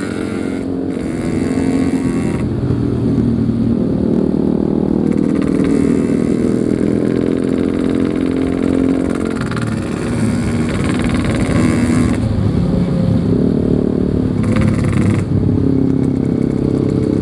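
Yamaha RX-King two-stroke single-cylinder motorcycle engine running on the move, its pitch rising and falling several times as the rider opens and eases the throttle.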